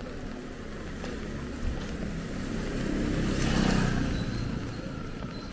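A vehicle drives past on the wet street: it grows louder to a peak about three and a half seconds in, then fades, with engine rumble and tyre hiss off the wet road. Steady rain hisses underneath.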